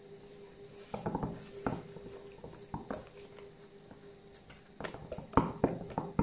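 Wire whisk stirring thick cake batter in a stainless steel bowl, the metal wires clinking and knocking against the bowl at irregular intervals. The knocks come thickest and loudest near the end.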